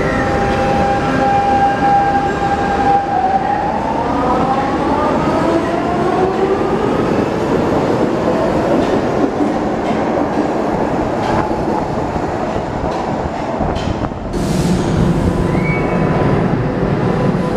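Lisbon Metro electric train pulling out of an underground station: a steady motor whine for about three seconds, then several whining tones rising in pitch together as it accelerates, over the rumble of the cars rolling past. Near the end the sound changes abruptly to a steadier, lower hum of a train at a platform.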